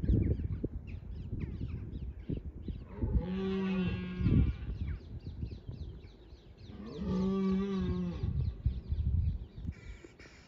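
Red deer stag roaring twice during the rut: two drawn-out, moo-like bellows, each about a second and a half long, a few seconds apart. A low, gusty rumble is loudest around the start.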